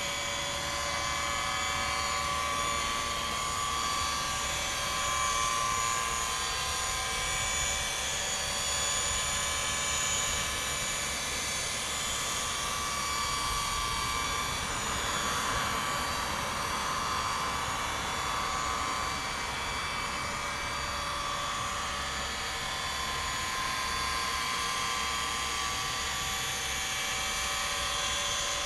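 Small electric motor of a model boat's bow thruster whining steadily, a high multi-toned hum that gets a little rougher about halfway through, over a low rumble.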